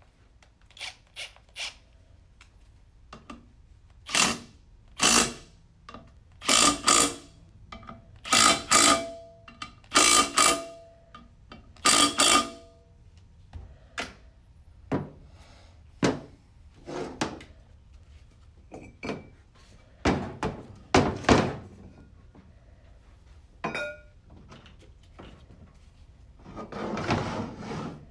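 Cordless power driver with a 12 mm socket running in the back-cover bolts of a CVT transmission in short spurts, about a dozen bursts of a fraction of a second each through the first half. Then scattered knocks and clanks of metal parts being handled, and a longer scraping rustle near the end.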